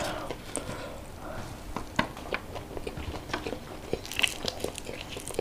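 Chewing and crunching of fried tilapia and rice, with many sharp crackles and clicks as fingers pick apart the crisp fried fish.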